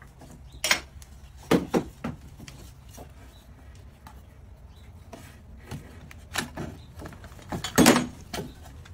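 Wooden knocks and clunks of a plywood plate and a jigsaw being handled and set down on a wooden workbench: a few separate thumps, the loudest cluster near the end, with no saw running.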